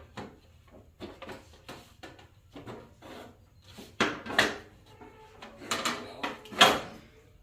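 A series of clunks and knocks from tractor parts being handled and worked loose by hand during disassembly. The louder clunks come about four seconds in and again near the end.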